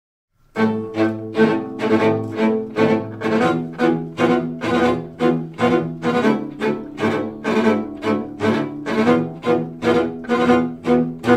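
Bowed strings, with cello prominent, playing a driving, even pulse of repeated strokes that enters about half a second in. It is the opening of a piece that depicts cattle and buffalo running.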